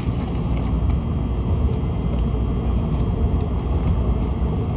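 Shinkansen bullet train running fast, heard from inside the passenger cabin: a steady, deep rumble that does not let up.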